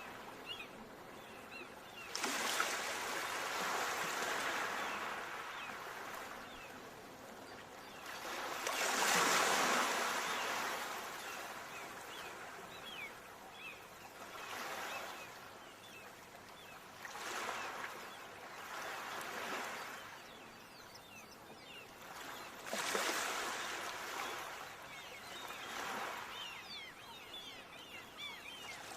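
Ocean surf washing onto a shore in repeated surges, about five swells of rushing noise with the biggest about nine seconds in, and a softer hiss of water between them.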